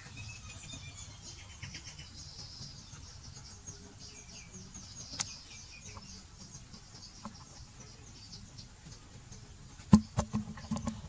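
Outdoor ambience of insects and birds: a steady run of rapid, high chirping pulses with a few higher bird-like chirps. About ten seconds in comes a short cluster of loud, sharp knocks.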